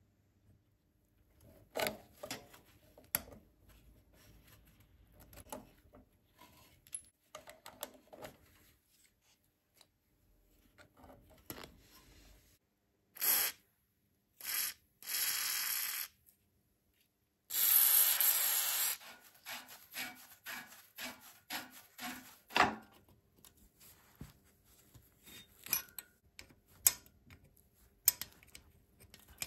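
Scattered clicks and light metal taps of hand tools on old, rusty motorcycle parts. About halfway through come three hissing bursts from an aerosol spray can with a straw nozzle, sprayed at a rusted exhaust nut; the last burst is the longest and loudest, about a second and a half.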